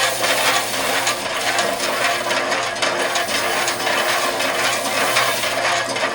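Portable concrete mixer running steadily: a motor hum under the rough, uneven rattle of concrete churning in the drum.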